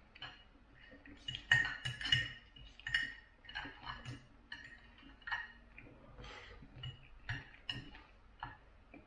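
Metal fork and cutlery clinking and scraping on a dinner plate while pork rib roast and rice are cut and picked at: a string of short, ringing clinks, loudest about one and a half to two seconds in, then recurring every half second or so.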